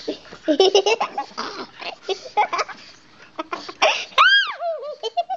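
Laughter and giggling, with a high squeal that rises and falls about four seconds in.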